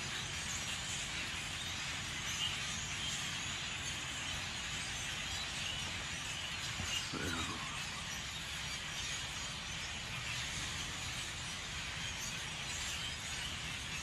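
A large flock of birds chattering, a dense din of many overlapping high calls, over a low steady rumble. A brief low sliding sound comes about seven seconds in.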